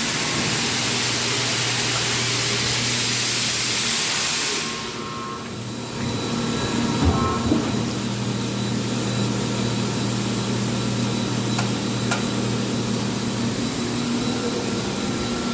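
Factory machinery for making car parts running with a steady hum. A loud hiss for about the first four and a half seconds then drops away, and there are a few short knocks later on.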